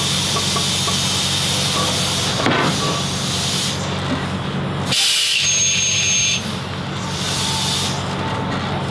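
Semi truck's diesel engine running as the tractor-trailer backs up to slide the trailer's tandem axles, with a sharp burst of compressed-air hiss about five seconds in and a shorter one near the end.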